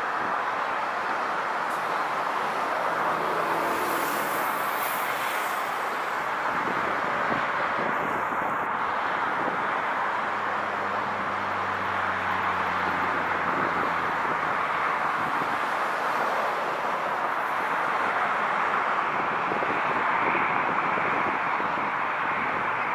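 Airbus A380's four jet engines at takeoff power, a steady even roar through the takeoff run and initial climb.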